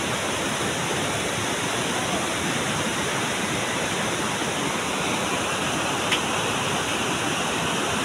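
Rushing river water below a gorge, a steady even rush of noise, with one sharp click about six seconds in.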